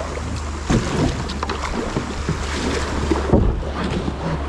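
A kayak being paddled through a river rapid: rushing water with many short splashes and knocks, over a steady low rumble of wind on the microphone.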